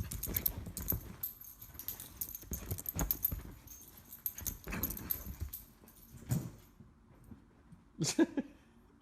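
A dog's sounds mixed with scattered clicks and knocks, quieter in the last couple of seconds apart from one short sound about eight seconds in.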